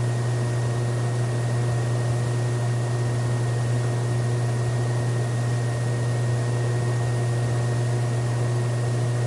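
Steady low hum with an even hiss and a faint high whine, unchanging throughout.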